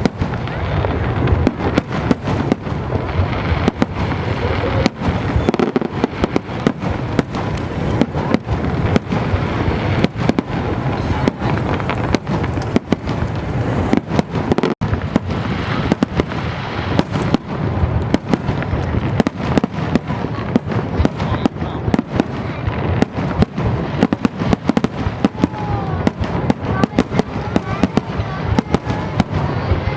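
Fireworks display going off nonstop: a dense, rapid run of bangs and crackles, many explosions a second, with no let-up.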